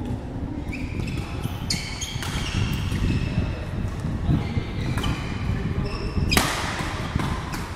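Badminton rally: several sharp racket strikes on the shuttlecock, the loudest about six seconds in, with short high squeaks from court shoes on the floor. A steady low rumble from the hall runs underneath.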